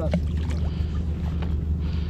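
Boat engine running steadily, a low even hum, with a few faint knocks over it.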